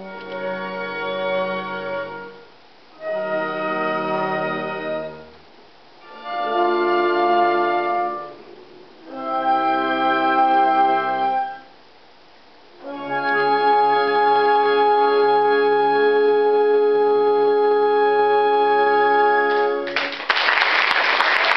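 Pit orchestra with keyboards playing five sustained, organ-like chords: four short ones with pauses between, then a final chord held about seven seconds. Applause breaks out near the end as the last chord stops.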